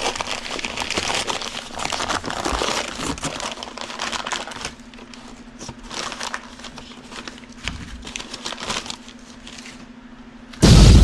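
Packaging crinkling and rustling as coilover parts are unwrapped, busy for the first few seconds and then sparser, over a faint steady hum. A loud thump near the end.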